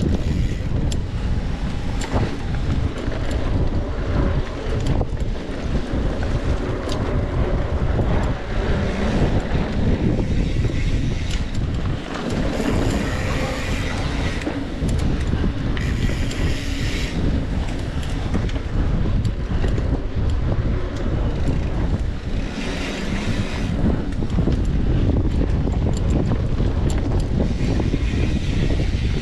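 Wind buffeting the microphone of a camera carried on a mountain bike ridden fast along a dirt trail, a steady low rumble. Over it come the scattered clicks and rattles of the bike over rough ground, and a few short bursts of hiss.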